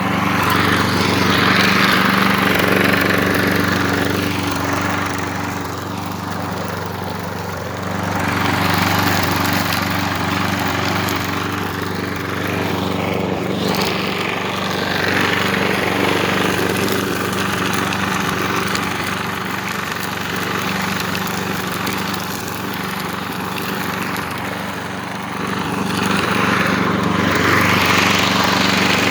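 Craftsman lawn mower with a newly fitted engine running at a steady speed while mowing. A rushing hiss of the blade swells and fades several times over the engine's hum, as it passes through grass.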